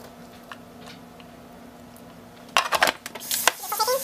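Plastic lid of a Cuisinart food processor clattering as it is fitted onto the bowl, about two and a half seconds in. Near the end its motor starts up with a high whirring hiss, blending bananas peel and all.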